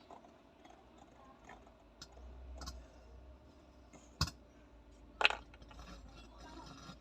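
Scattered small clicks and light knocks of tools and parts being handled, with two sharper knocks about four and five seconds in.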